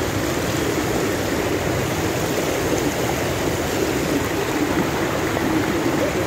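Floodwater rushing fast over a paved street, a steady, even rushing noise.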